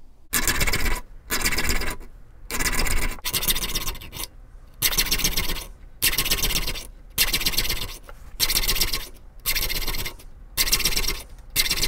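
Small triangular file rasping across the steel teeth of a hand saw in short strokes about once a second, with brief pauses between them. The saw is being sharpened, filing every other tooth with the file angled the opposite way.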